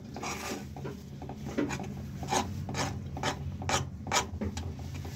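Steel spatula scraping and stirring a thick chickpea-flour and sugar-syrup paste around a dark pan in repeated, irregular strokes, roughly two a second, over a low steady hum. The mixture is thickening and starting to come together into one mass, ready to set as barfi.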